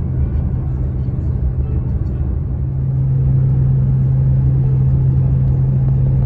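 Steady low drone of a car's engine and tyre noise, heard from inside the moving car. It grows a little louder about three seconds in.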